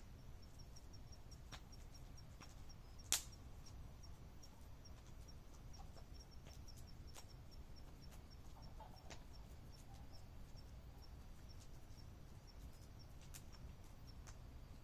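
Campfire crackling with scattered sharp pops, one much louder crack about three seconds in, over a steady high chirping of a night insect, about four chirps a second.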